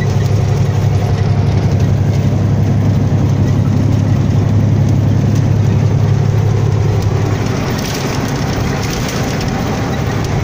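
Truck's engine running with a steady low drone under even road noise, heard while driving.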